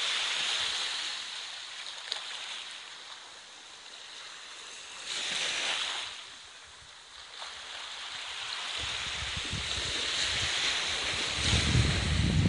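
Small sea waves washing up onto a sandy beach, hissing as they spread and draw back, with one swell about five seconds in. Low wind rumble on the microphone in the last few seconds.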